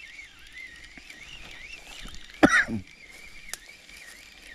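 A man's short cough, or a cough-like grunt, about two and a half seconds in, over faint outdoor background. A single sharp click follows about a second later.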